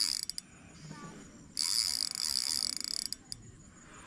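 Spinning reel's drag buzzing in abrupt bursts as a hooked fish pulls line off the spool: a short burst cutting off just after the start, then a longer one from about one and a half to three seconds in.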